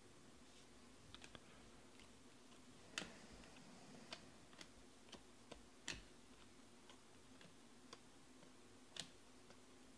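Near silence with about ten faint, irregular clicks and ticks of glossy Panini Prizm baseball cards being flicked through by hand, one card slid behind another. A low, steady hum sits underneath.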